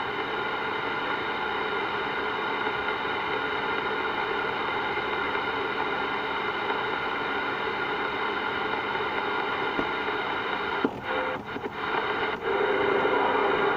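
CB radio speaker putting out steady static laced with a constant whine of several tones. About eleven seconds in, the noise breaks up and dips a few times before carrying on.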